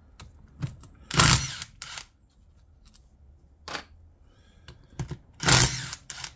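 Cordless power driver spinning out the steel bolts of a Honda GL1000 Goldwing final drive's retaining ring cover, in two short bursts: one about a second in and one near the end. Light clicks of bolts and tool come between them.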